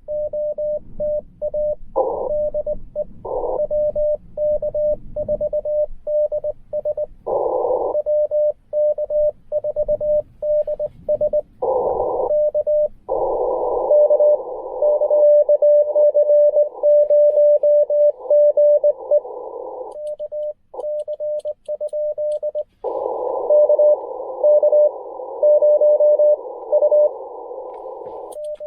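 Morse code from a Ten Tec Argonaut V transceiver. First comes the keyed sidetone of a CQ call, a steady mid-pitched tone sent in quick dits and dahs. Then, twice, the receiver's band hiss comes through the narrow CW filter with a fainter Morse signal inside it, likely another station answering.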